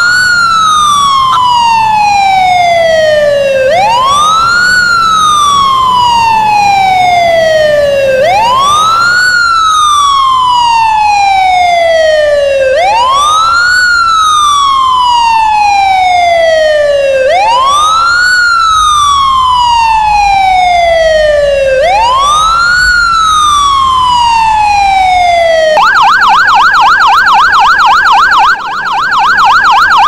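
Emergency-vehicle siren in wail mode, loud: each cycle sweeps quickly up and then falls slowly, about every four and a half seconds. About 26 seconds in it changes to a fast yelp, warbling up and down several times a second.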